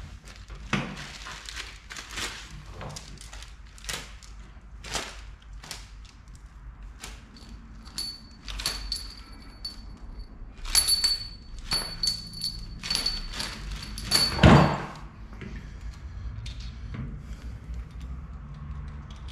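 Metal tools and engine parts handled on a bare engine block: scattered clinks and knocks, several with a brief high ring, and one heavier thunk about three-quarters of the way through.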